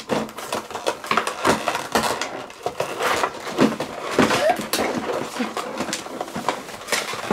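Cardboard toy boxes and plastic packaging being handled and torn open, with irregular crinkling, rustling and scraping.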